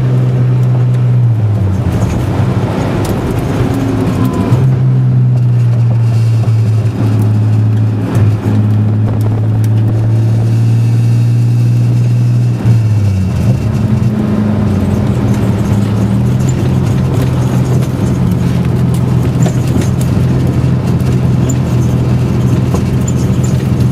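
Turbocharged Datsun 260Z inline-six engine heard from inside the cabin, running steadily at moderate revs. Its pitch steps down and back up a few times as the car is driven.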